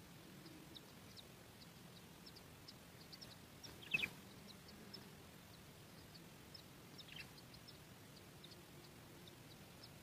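Faint, short, high bird chirps scattered throughout over a low background hiss. A louder brief call that drops in pitch comes about four seconds in, and a smaller one about seven seconds in.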